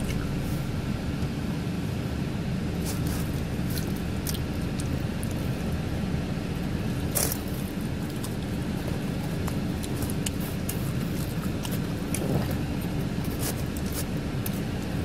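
Steady low rumble of an idling car, with a faint hum in it. Scattered small clicks and smacks of someone eating pizza sit over it, the sharpest about halfway through.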